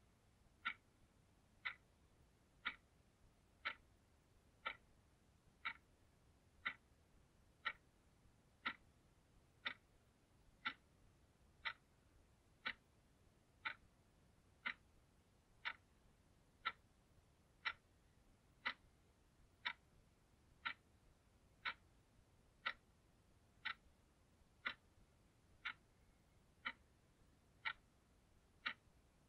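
Analogue alarm clock ticking steadily, one crisp tick a second.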